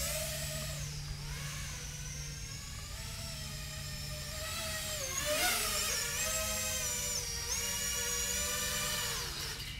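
Brushless motors and propellers of a GEPRC Baby Croc 4 quadcopter whining as it is throttled. The pitch dips and rises about halfway through and shifts again near the end as the throttle changes. It is a test run after a flight-controller repair, and the drone is running properly.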